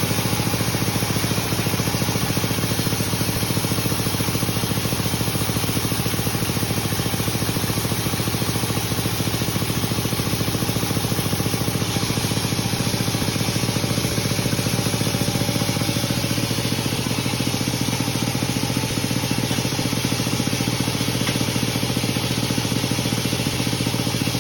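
Sawmill machinery running steadily with an even, engine-like drone and no break or change in pitch.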